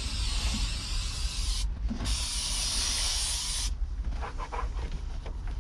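Aerosol spray can hissing in two long bursts with a short break between, the first stopping about a second and a half in and the second lasting about a second and a half, then a microfiber towel rubbing over the dashboard.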